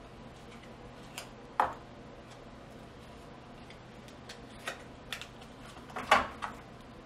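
Scattered small clicks and taps from handling the LP burner orifices and their card at the range's cooktop: a sharp tap about a second and a half in, a few light ticks in the middle, and the loudest short cluster near the end.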